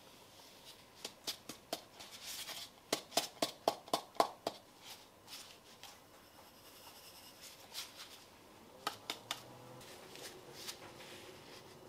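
Flour tipped from a plastic bowl into a glass mixing bowl: a brief soft pour, then a quick run of about six sharp taps of the containers knocking together. A few lighter clicks follow later as sugar is added.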